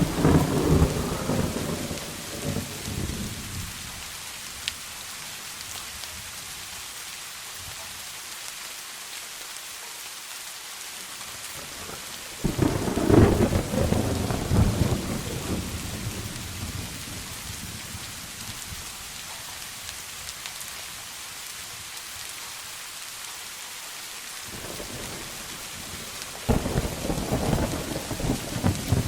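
Steady rain with three rolls of thunder: the first rumble dies away over the first few seconds, a second breaks about twelve seconds in and fades over several seconds, and a third starts near the end.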